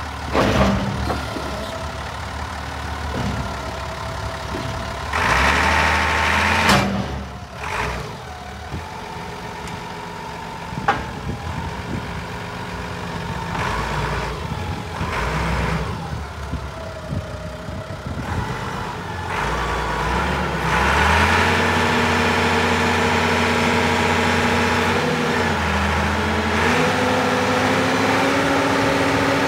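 Diesel engine of a Kalmar DC 7.5-600 forklift truck running, revving up briefly a few times. In the last third it runs louder at higher revs, its pitch shifting up and down.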